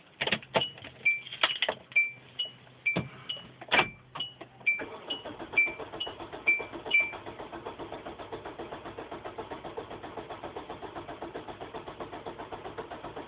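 Car keys clicking and jangling with a two-tone warning chime sounding about twice a second, then about five seconds in the starter cranks the engine in a steady rapid chug for some eight seconds without it catching: a car that will not start.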